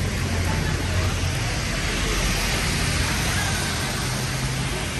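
Wet city street: traffic rumbling beneath a steady hiss of rain and tyres on the wet road, the hiss swelling around the middle.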